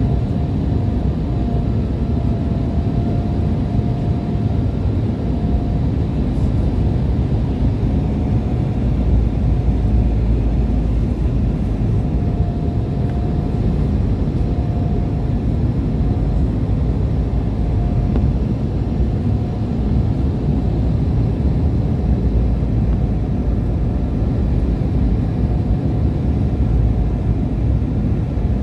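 Jet airliner cabin noise on the approach to landing: a steady rumble of engines and airflow heard from inside the cabin, with a faint steady whine above it.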